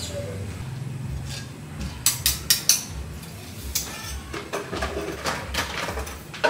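Metal utensils clinking against a cooking pot: four sharp clinks in quick succession about two seconds in, then scattered lighter knocks.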